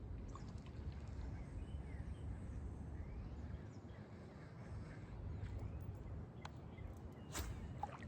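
Faint outdoor ambience: a steady low rumble with a few faint bird chirps, and one sharp click about seven seconds in.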